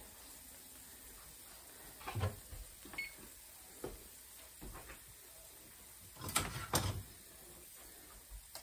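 Scattered soft knocks and clatters of kitchen handling as a cook moves about with an oven mitt, with the loudest two knocks about six and a half seconds in.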